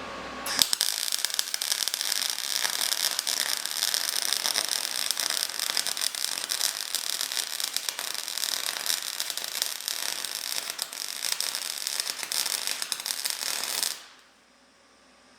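MIG welder arc crackling steadily as a bead is run over a crack in the old mild-steel windshield frame of a 1946 Willys CJ-2A. It strikes about half a second in, runs for about 13 seconds, and cuts off sharply near the end.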